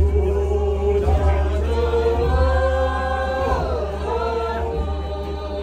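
Voices singing or chanting together in long held notes that shift slowly in pitch, over a steady deep bass.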